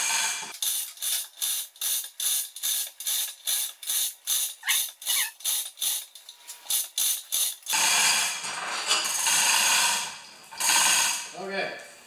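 Manual chain hoist clicking steadily, about three clicks a second, as its hand chain is pulled to lift the front of a lawn tractor under load. It is followed by a few seconds of louder, rougher noise as the chain is handled.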